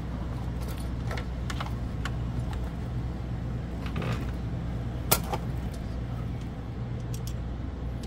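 Scattered small clicks and taps of metal lock hardware being handled and fitted against a camper door, with one sharper click about five seconds in, over a steady low hum.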